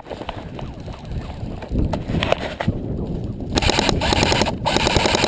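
Airsoft guns firing: a few scattered single shots, then two long full-auto bursts of rapid rattling shots near the end, split by a brief pause.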